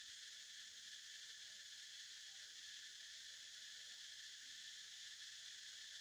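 Faint, steady chorus of insects: a continuous high-pitched buzz with no breaks.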